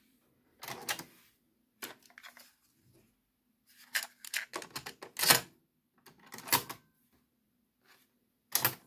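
Mechanical clicks and clunks of a JVC KD-10 cassette deck's cassette door and transport keys as a cassette is loaded. The door springs open, a cassette is set in and the door is pushed shut, and a piano-key transport button clicks down near the end.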